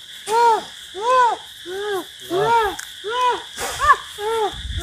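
A person crying out in a rapid series of short, high wails, about two a second, each rising and then falling in pitch, like hooting sobs.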